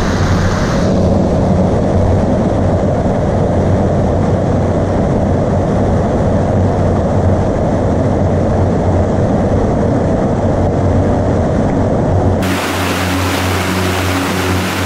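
Whitewater rapids of the Sydenham River rushing over limestone boulders in a steady, deep rush of water. About twelve seconds in the sound switches abruptly to a brighter, hissier rush of cascading water.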